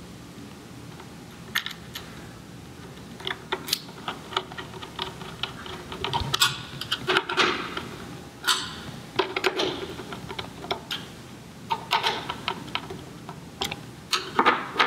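Irregular small clicks, taps and short scrapes of a screwdriver and metal parts being handled while a diaphragm pump unit's housing is screwed back together.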